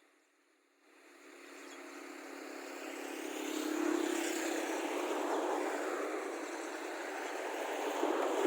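A motor vehicle's engine and running noise passing close by. It fades in after about a second of silence, swells to its loudest about four seconds in, and stays loud after that.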